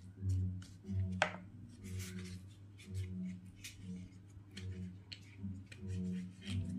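Banana leaf crackling and crinkling as it is folded by hand into a cone, with irregular crisp snaps and a sharp crack about a second in. Under it a low hum swells and fades about twice a second.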